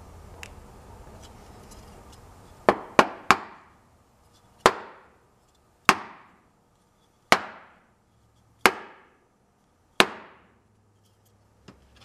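Sharp taps of a small plastic power door lock actuator housing knocked against a workbench, to shake loose a motor brush stuck tight in its holder. Three quick taps, then five more at an even pace of about one every second and a third.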